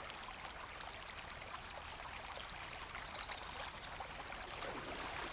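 Shallow river water rushing and babbling over rocks, a steady even rush.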